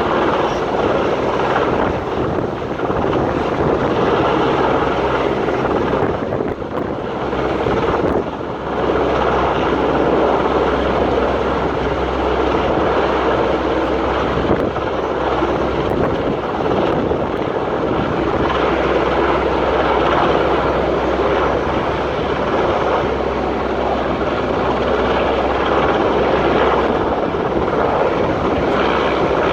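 Rescue helicopter running steadily overhead, a continuous dense rotor and engine noise.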